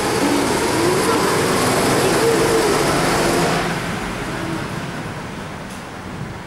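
Go-karts running on an indoor kart track, a loud engine noise that holds for about three and a half seconds and then fades away.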